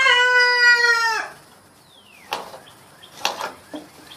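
A rooster crowing: one long held call that drops at the end and stops a little over a second in. A few sharp knocks follow.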